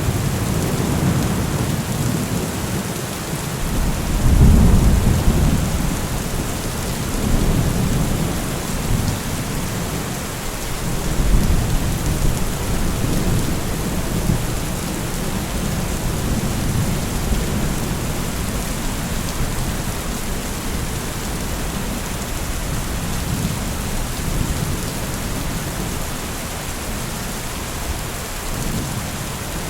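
Steady rain falling, with low rolling thunder rumbles that swell about four seconds in and again about eleven seconds in.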